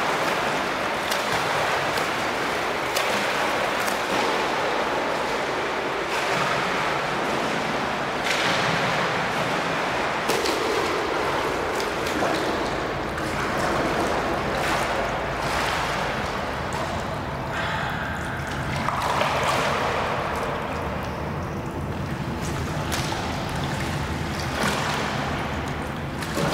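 Water splashing steadily as a swimmer strokes through a pool.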